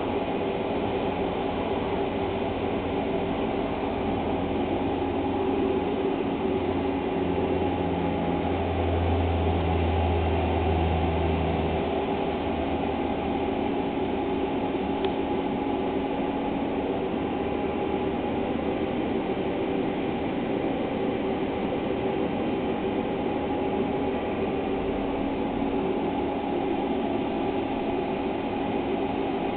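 Steady machine drone with a few constant hum tones, and a deeper rumble that swells about a quarter of the way through and fades again a few seconds later.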